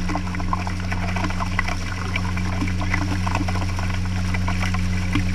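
Boat under way: water rushing and splashing against the aluminium hull, with many small crackling splashes over a steady low engine hum.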